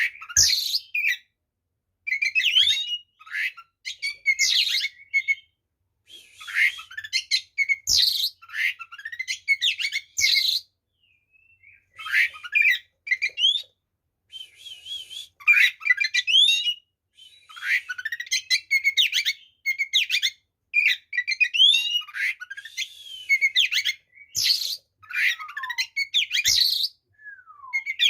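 Oriental magpie-robin (kacer) singing its fighting song: rapid bursts of varied whistles, trills and sliding notes packed with mimicked phrases, each burst a second or two long with short pauses between. A long falling whistle comes near the end.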